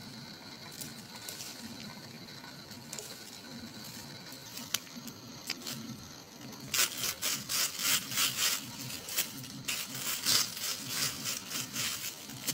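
Dry twigs and dead leaves crackling and rustling as they are handled and arranged by hand, a quick run of scratchy strokes that starts about seven seconds in and keeps on until near the end. Before that, only a few faint ticks.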